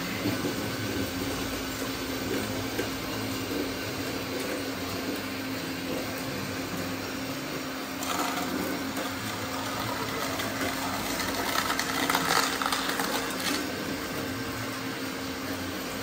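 Small electric motors of radio-controlled model construction machines whirring with a steady hum, with a patch of clicking and rattling about twelve seconds in.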